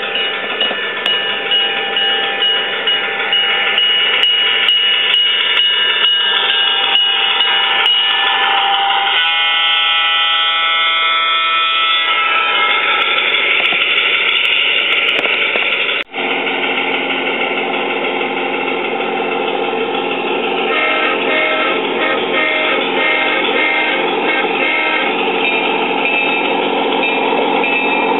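Large-scale model locomotive's digital sound system playing diesel locomotive sounds: a steady engine sound with regular ringing strikes like a bell at first, then a multi-tone horn blown for about three seconds. About sixteen seconds in, the sound breaks off for an instant and resumes as steady engine running.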